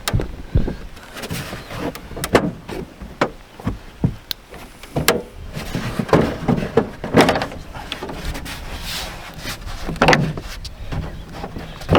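Irregular knocks, clatters and scrapes from handling an RV rooftop air conditioner's shroud as the last screw comes out and the cover is worked loose.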